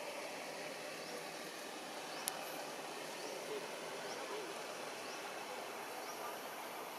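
Outdoor forest ambience: a steady background hiss with faint short rising chirps about once a second, and a single sharp click a little over two seconds in.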